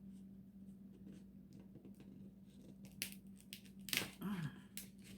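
Dungeness crab shell being cracked open: a run of sharp cracks and snaps starting about three seconds in, over a steady low hum.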